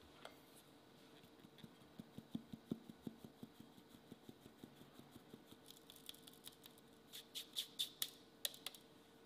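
Flour being sifted through a plastic mesh sieve into a glass bowl, the sieve tapped by hand: a run of soft taps, about three or four a second, then a few sharper clicks near the end.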